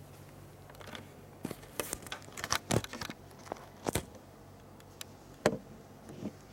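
Handling noise: scattered soft clicks and rustles, a cluster of sharper ones between about two and four seconds in and another near five and a half seconds, over a faint steady low hum.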